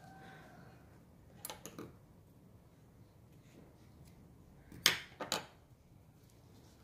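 Small metal scissors snipping cotton crochet yarn: two sharp clicks close together about five seconds in, after a few faint handling clicks.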